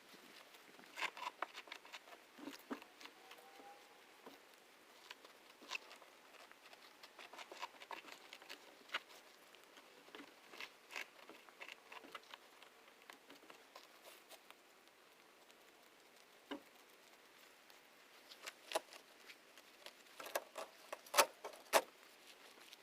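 Weeds and grass being pulled out of the dirt by hand: irregular rustling, tearing and crackling, with a cluster of sharper snaps near the end.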